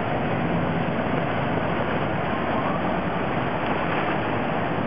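Cars and a taxi driving slowly through floodwater, their wheels pushing the water aside in a steady rushing wash.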